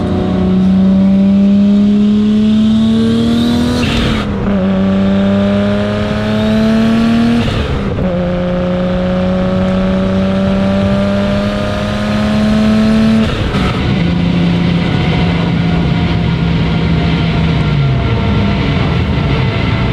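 Tuned Toyota Supra MK4's turbocharged engine accelerating through the gears: the engine note climbs steadily in three pulls, with upshifts about four and eight seconds in. After a lift-off about thirteen seconds in, the note holds steady, then drops near the end as the revs fall.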